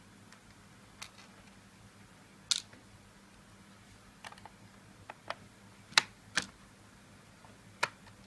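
Scattered small clicks and taps of a screwdriver and fingers on a laptop's plastic case while the hard drive bay screws are undone. There are about eight sharp ticks at uneven intervals, the loudest about six seconds in.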